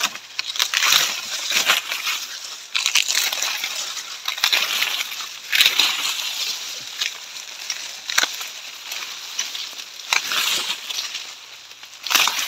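Dry sugarcane leaves being stripped and pulled from the stalks by hand: a series of irregular crackling rustles, a few each second.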